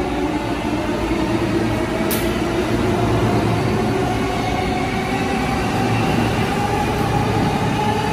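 JR East E233-series electric commuter train rolling along the platform as it slows into the station. Its traction motors and inverter give a steady hum over wheel and rail rumble, with a brief high click about two seconds in.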